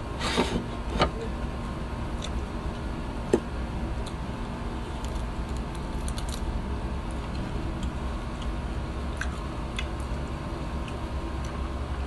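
Eating rice and fried fish by hand: small clicks and smacks of chewing and of fingers at the plate, a couple of sharper ones in the first second and another about three seconds in, over a steady low hum.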